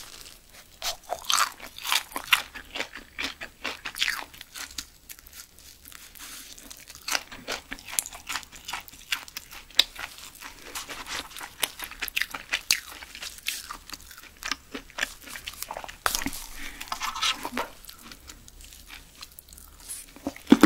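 Close-miked chewing of braised silkworm pupae (beondegi): a dense, irregular run of soft crunches and wet clicks as they are bitten and chewed.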